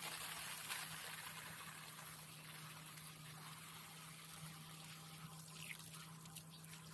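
A 12-volt portable camping shower running: water sprays steadily from the handheld shower head onto grass and, near the end, over a hand, with the steady low hum of the submersible pump. The spray is loudest at first, then softer.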